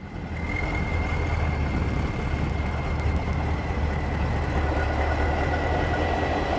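A vehicle running steadily: an even low rumble with a faint, high steady whine over it.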